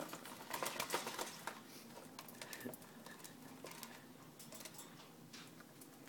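Baby lorikeet bathing in a shallow plastic tub of water: a rapid patter of splashes and wing flaps, busiest in the first second and a half, then thinning to scattered splashes and clicks.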